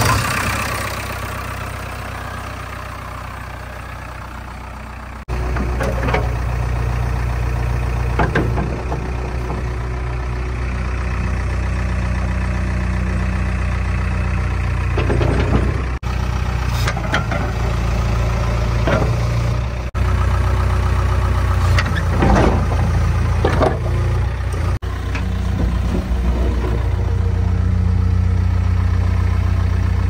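JCB 3DX backhoe loader's diesel engine idling just after starting, then running louder and heavier from about five seconds in. A few short knocks of the machine's metal parts come through over the steady hum.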